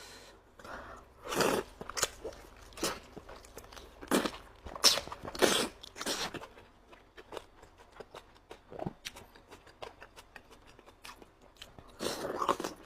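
Close-up mouth sounds of eating boiled chicken: irregular bites and chewing, with the loudest bites about a second and a half in, between about four and six seconds, and again near the end.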